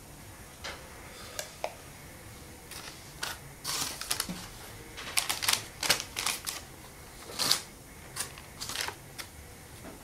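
Spatula scraping a mixing bowl as a soft whipped filling is poured into a baking tin, with baking paper crinkling as it is straightened: irregular small clicks and rustles, busiest in the middle.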